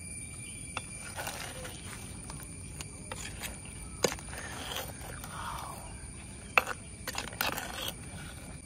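A ladle stirring crab curry in a clay pot, with scattered scrapes and a few sharp knocks against the pot; the loudest knocks come about four and six and a half seconds in. A steady high whine runs underneath.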